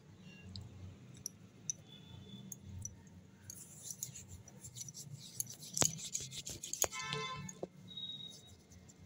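Hands rolling a small ball of clay between the palms: soft rubbing with scattered small clicks and taps, busiest in the middle. A brief pitched sound comes about seven seconds in.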